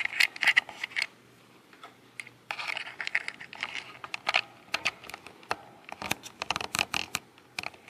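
Light clicks and crinkling, rustling handling noise of small objects being moved about by hand, in irregular bursts with a thicker patch of rustling partway through.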